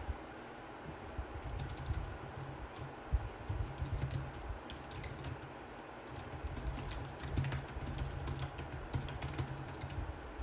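Irregular runs of light, sharp clicks and taps over a low steady rumble.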